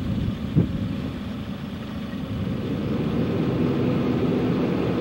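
Car engine running as the vehicle gets under way, growing a little louder and steadier after about two seconds, with a single knock just after the start.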